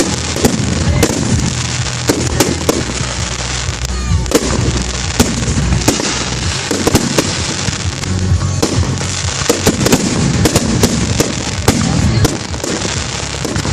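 Fireworks display going off in rapid volleys: many sharp bangs and crackles each second, one on top of another.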